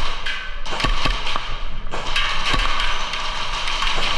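Airsoft guns firing a few irregular single shots, sharp pops over a constant rustle of movement and gear.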